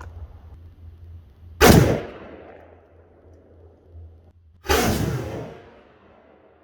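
Cooey Model 71 rifle shots: two sharp, loud reports about three seconds apart, each with a tail that rings out over about a second.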